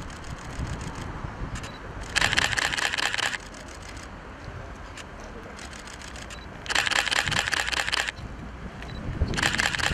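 Camera shutters firing in three rapid bursts, each about a second long, over a steady low background noise.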